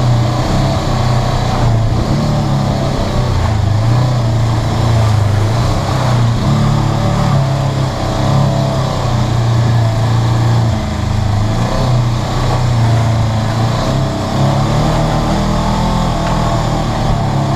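Polaris RZR 900 side-by-side's twin-cylinder engine running on the trail, heard from inside the open cab, its pitch rising and falling as the throttle is worked, with a few brief easings off the gas.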